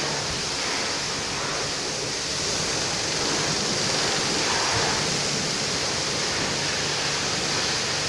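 Steady hiss of a high-pressure water spray, with a faint low hum running under it.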